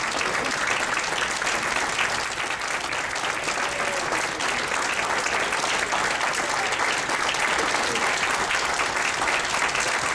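Audience applauding: many hands clapping in a steady, dense patter that holds at an even level.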